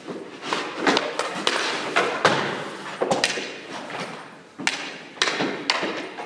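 Irregular sharp knocks and thuds, about two a second, each with a short echo: hockey pucks and gear striking the boards and pads during rink practice.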